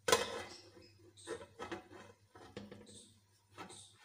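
Aluminium pan lid set down on a frying pan: a metal clank right at the start that rings briefly, followed by several lighter knocks and clicks as the lid settles and is adjusted.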